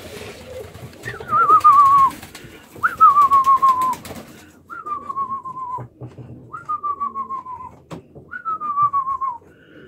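A high whistle that drops in pitch with a quivering waver, about a second long, repeated five times at an even pace of roughly one every two seconds.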